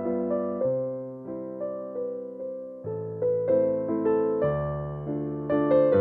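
Background music: a soft electric piano melody, notes struck one after another and left to fade.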